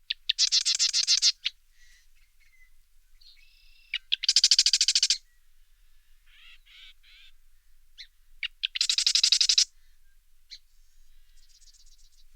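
Wren singing: three loud, rapid, high trills about a second long each, roughly four seconds apart, with softer short chirps and notes in between.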